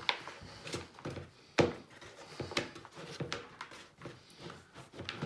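Hands pressing and kneading cookie dough in a plastic mixing bowl: irregular soft thumps and knocks, the loudest about a second and a half in.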